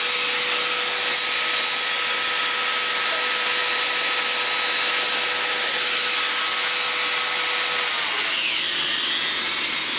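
Handheld electric rotary tool running at high speed with a steady whine, its pitch dropping about eight seconds in as the bit is pushed into the bore of a welded steel mount plate to open it up for a pin.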